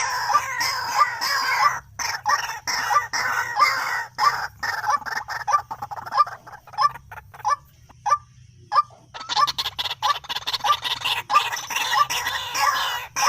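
White-breasted waterhen (dahuk) calling: a long run of repeated harsh notes, two or three a second, with a short break about eight and a half seconds in.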